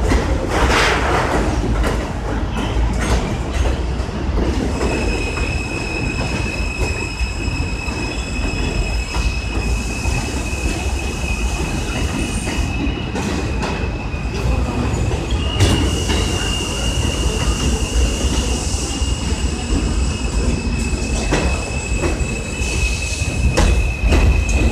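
New York City Subway trains running through an elevated station: a heavy steady rumble of wheels on rails. From about five seconds in, a steady high-pitched squeal of train wheels joins it and steps up slightly in pitch past the middle.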